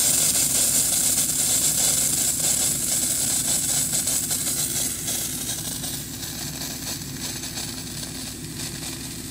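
Pop-up sprinkler head blowing out a hissing spray of compressed air and water, over the steady hum of a tow-behind air compressor's engine. The spray is still an air-water mix, so the zone is not yet fully cleared of water. The sound gets somewhat quieter from about six seconds in.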